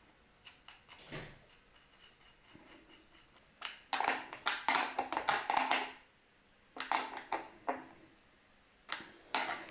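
Metal tool clicking and rattling against the terminal bolts and nuts of LiFePO4 battery cells as the aluminium busbar connections are tightened. The clicks come in quick bunches from about four seconds in, again around seven seconds and near the end.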